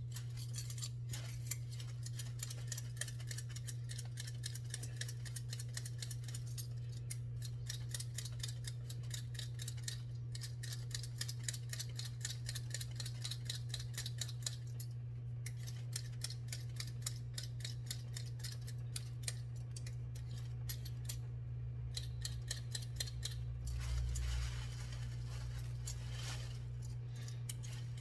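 Hand potato peeler scraping potatoes in repeated short strokes, about one or two a second, over a steady low hum.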